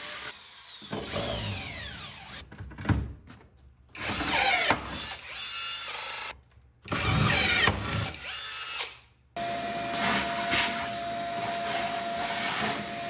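Power drill running in several short, cut-together bursts as it drills the aluminum box frame, each run spinning up and winding down. From about two-thirds of the way in, a shop vacuum runs steadily with a constant hum.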